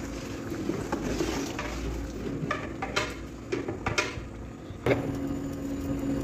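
Large metal ladle stirring a big pot of thick, creamy chicken curry, with several clinks and scrapes against the pot in the second half over a steady low hum.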